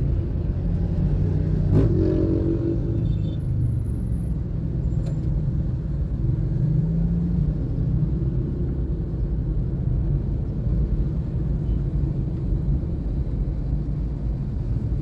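Steady low rumble of a vehicle's engine and road noise while driving in slow city traffic, with one sharp click about two seconds in.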